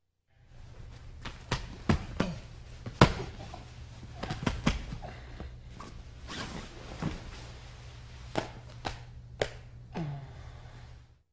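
Grappling on a mat: a string of dull thumps and knocks as bodies and hands hit the mat, with rustling of cotton gi jackets over a steady low hum. The loudest thump comes about three seconds in.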